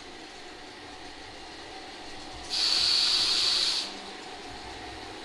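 A sharp hiss, like steam blowing off, lasting just over a second, over the steady low running noise of a 0-gauge model railway.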